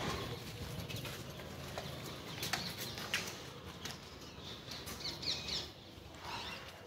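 Central Asian Shepherd (Alabai) puppies moving about and playing: faint scattered clicks and scuffs of paws, with a short high squeak about five seconds in.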